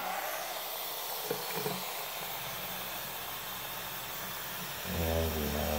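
Bathroom sink faucet running steadily into the basin, a continuous hiss of water filling the sink to test the new pop-up drain and overflow for leaks. A man's voice breaks in briefly near the end.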